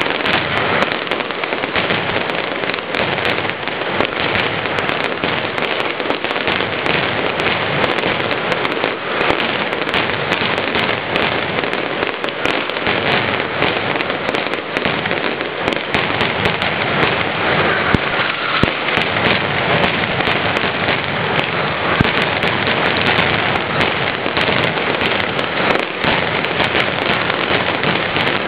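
Mascletà firecrackers going off in long strings: a dense, unbroken rattle of countless sharp bangs that blur together like heavy rain.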